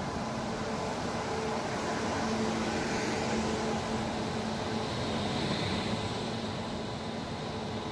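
Electric passenger train, a WAP-7 locomotive and its coaches, rolling slowly into a station platform: a steady low hum and rumble of wheels on the rails, with a hiss that swells about halfway through as the coaches pass.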